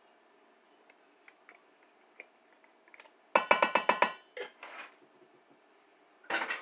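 A rapid run of sharp, ringing knocks, about ten in under a second, a little over three seconds in, then a few softer knocks and another short burst near the end. A glass gravy jar and a wooden spoon are being knocked against each other over the pot to empty the jar.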